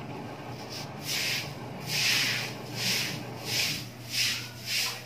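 A run of short rubbing or scraping strokes, about six of them, coming faster and louder after about a second, over a steady low hum.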